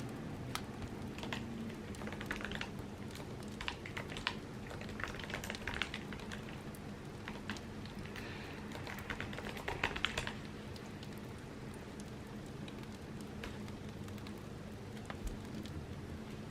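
Typing on an Apple keyboard: scattered, irregular keystrokes with short pauses and a quick run of keys about ten seconds in.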